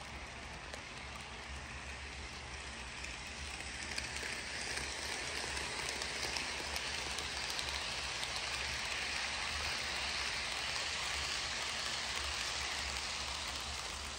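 Model train cars rolling past on the track: a steady hissing rattle of small wheels on rail that grows louder about four seconds in as the cars pass close, then eases near the end, over a low steady hum.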